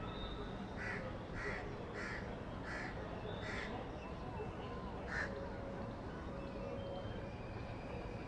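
A crow cawing: five harsh caws in a quick run, then one more after a short pause, over a steady low background hiss.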